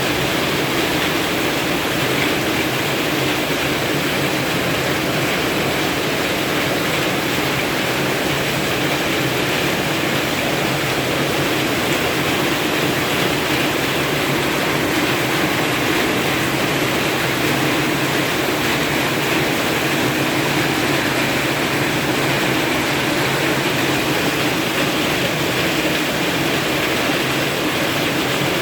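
Heavy rain pouring down, a steady even hiss that does not let up.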